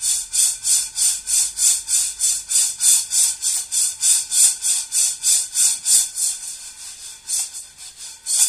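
Roasting coffee beans rattling and sliding in a frying pan as it is shaken back and forth over the gas flame, about three shakes a second, turning slower and irregular after about six seconds. The beans are near the end of the roast.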